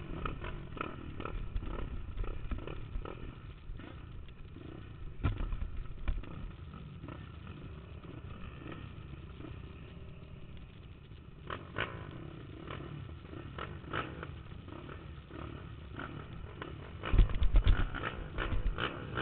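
A Honda TRX450R quad's single-cylinder four-stroke engine running hard at racing speed, heard from a helmet camera with wind and rough-track rumble over it. Heavy low thuds and buffeting come about five seconds in and again near the end.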